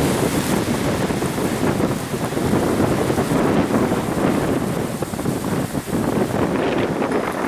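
Blizzard wind gusting hard across the microphone: a loud, steady buffeting rumble with a hiss of blowing snow above it.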